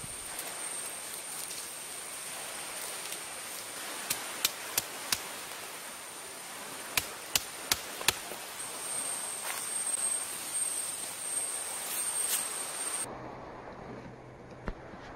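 Wooden knocks from a stick being worked into a stick shelter frame: two quick sets of four sharp knocks, over a steady hiss with a high thin whine. Near the end the whine stops and a low hum comes in.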